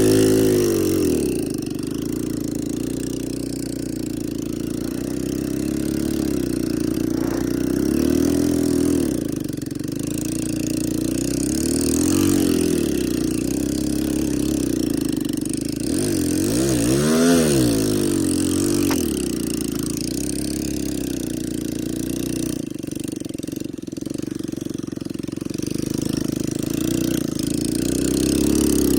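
ATV engine running steadily, with the throttle blipped up and eased off several times; the biggest rev comes a little past the middle.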